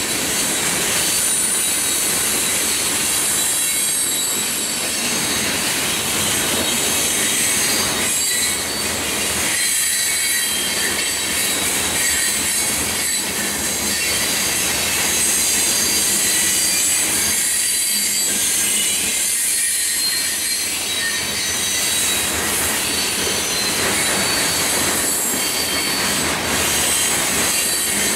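Loaded freight cars rolling steadily past on the rail, with a continuous high-pitched squeal of steel wheels on the rails and scattered clicks of the wheels.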